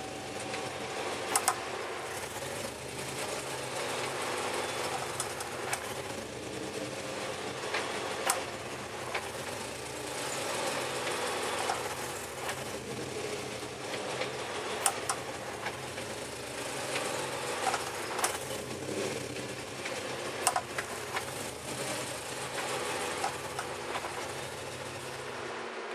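Cadillac CTS-V V8 engine running steadily, with sharp clicks over it at irregular intervals, often a few seconds apart.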